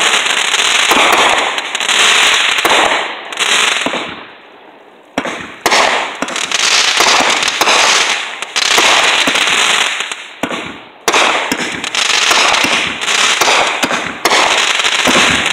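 Consumer fireworks cakes firing: a dense, rapid run of launch thumps and crackling, popping bursts. About four seconds in it dies down briefly, then a sharp bang starts it up again.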